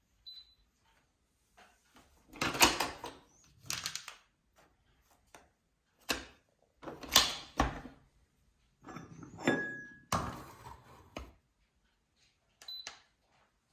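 Plastic clicks and clunks from a Tchibo Cafissimo Easy capsule coffee machine being loaded: the lid lifted, a capsule dropped into the holder and the lid pressed shut. A lighter click near the end as a cup button on top is pressed.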